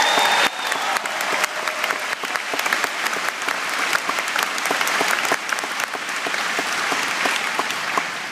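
Large arena crowd applauding, with dense clapping that is loudest at the start and eases slightly toward the end.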